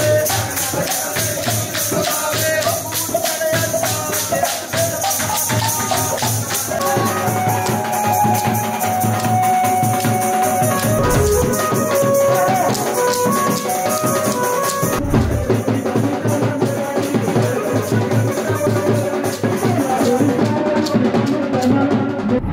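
Upbeat instrumental music with dense, fast percussion and rattles under a moving melody line. The brightest highs drop away about two-thirds of the way through, and the beat carries on.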